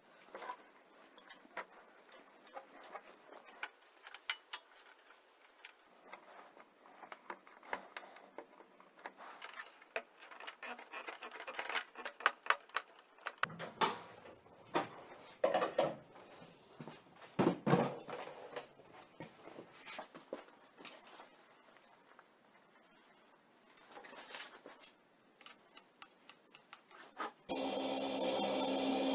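Scattered light knocks, taps and rubbing scrapes of objects being handled, busiest around the middle. Near the end a motor starts and runs steadily.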